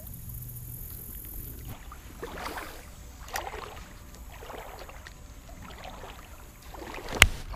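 Shallow creek water swishing and lapping around a wading angler, with a few faint soft splashes. About seven seconds in comes one sharp knock.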